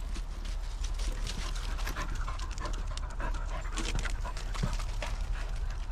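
Small dogs panting close by, mixed with many short clicks and scuffs over a steady low rumble.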